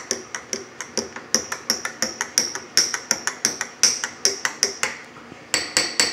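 Metal spoon clinking against the inside of a tall drinking glass while stirring juice, about three ringing clinks a second, with a short pause and then a few quicker clinks near the end.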